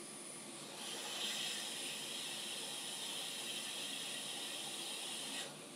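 Hot air rework station blowing a steady hiss over a small chip on a laptop motherboard, reflowing the solder to fit a replacement regulator chip. The hiss gets louder about a second in and drops out briefly near the end.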